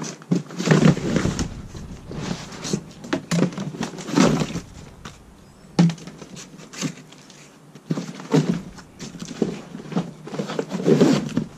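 Cardboard box flaps and packing material rustling and scraping in irregular bursts as hands dig through the carton, with a few sharp knocks.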